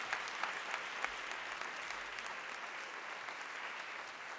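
Audience applauding steadily, with a few sharper claps standing out in the first second or so and the clapping easing off slightly toward the end.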